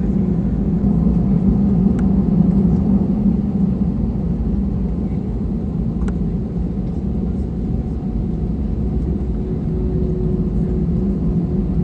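Airbus A320 cabin noise on the ground: a steady low rumble of the jet engines and airframe, heard from inside the passenger cabin as the aircraft taxis.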